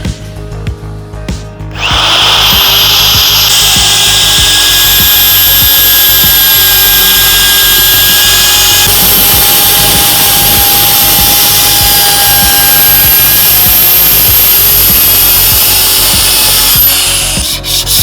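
Electric wood router running steadily with a high whine, routing the edges of glued plywood; it starts about two seconds in and stops shortly before the end, with background music at the start.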